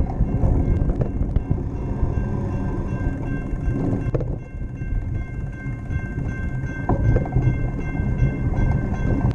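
Rolling noise of a bicycle ridden on pavement: a steady low rumble of wind on the microphone and tyres on concrete, with a faint, steady high whine over it.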